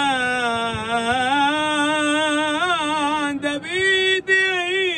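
A male cantor singing a long, wordless held note in Mizrahi cantorial style, its pitch wavering and ornamented. After a brief break about three and a half seconds in, he rises to a higher held note.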